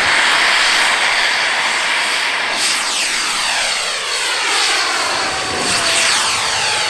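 SAB Avio Lizard model turbine jet at full power, climbing vertically from its launch, with a loud rushing hiss and a steady high whine. The rush sweeps downward in pitch twice, about two and a half and six seconds in, as the jet climbs away.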